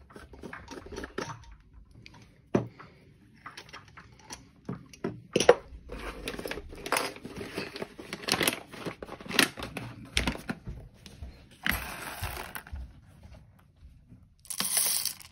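Hand coffee grinder and its glass jar being handled and set down, with a series of clicks, knocks and clatter. Near the end, whole coffee beans are poured from a bag into the grinder's steel hopper in a short, loud rattling rush.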